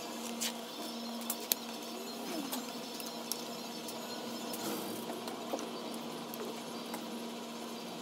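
A few light clicks and knocks from hands handling scooter engine parts and their wiring, over a steady low hum.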